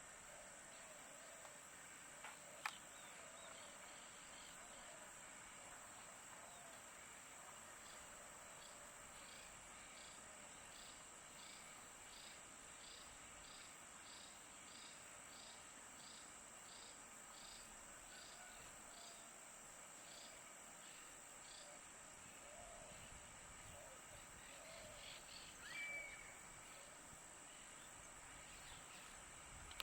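Faint wetland ambience: a steady high insect drone, with a run of evenly spaced chirps in the middle. A short bird call stands out near the end, and there is a single sharp click near the start.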